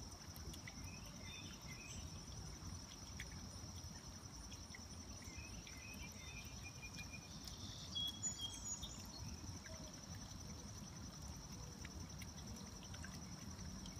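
Steady high-pitched insect trill, with a few faint bird chirps and a brief louder chirping flurry about eight seconds in.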